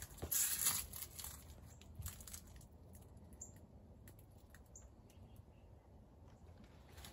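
Rustling and crinkling of large castor bean leaves brushing past as the plants are pushed through, loudest in the first second, then scattered light clicks and two faint high chirps.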